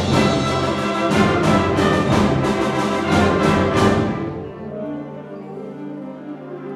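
Concert wind band playing a loud full-ensemble passage with evenly spaced accented beats, about three a second. About four seconds in, the loud playing dies away, leaving soft held low chords.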